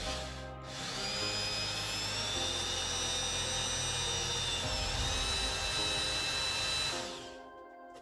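Cordless drill running for about six seconds with a high whine that dips briefly past the middle, as it works the plywood panel. Background music plays underneath.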